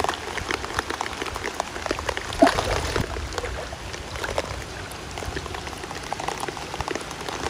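Heavy rain falling on a river's surface: a steady hiss with many raindrops ticking close to the microphone, and a low rumble underneath.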